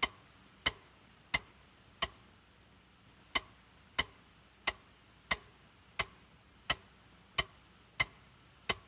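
A clock ticking steadily, about three ticks every two seconds, with one tick left out a little after two seconds in.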